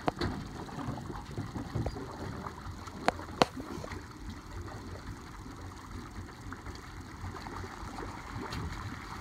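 Toyota Tundra pickup running with its rear in shallow lake water: a low, steady rumble, with two sharp knocks about three seconds in.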